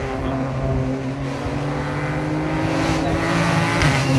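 Rally car engine running hard under load, a steady note whose revs slowly rise, growing louder as the car approaches.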